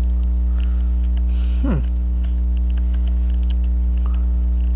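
Loud, steady electrical mains hum with many even overtones, picked up by an AC-powered camcorder and salvaged microphone that lack a proper ground. Faint clicks from handling the brass clock movement sit under it.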